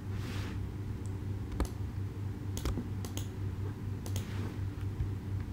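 About half a dozen sharp, irregularly spaced clicks of a computer mouse and keyboard, over a steady low hum.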